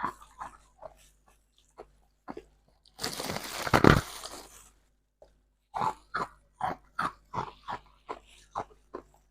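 Close-up chewing of soft freezer-frost ice, crisp crunching strokes. About three seconds in comes a louder, longer burst of crushing, followed by a steady run of chewing crunches, about two or three a second.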